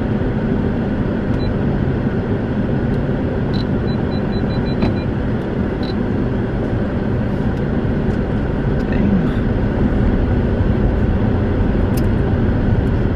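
Car cabin noise, a steady rumble from the moving car, with a few sharp clicks through it and a short run of quick high beeps about four seconds in.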